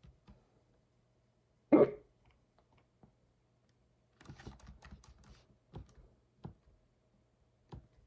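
A single loud hiccup a little under two seconds in, then a short burst of typing on a computer keyboard and a few separate key clicks.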